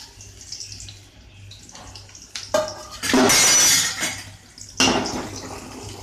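Chopped onions sizzling quietly in hot oil in an aluminium kadai, broken by loud clattering and scraping of metal cookware: a knock about two and a half seconds in, a long clatter about three seconds in, and another sharp hit near five seconds.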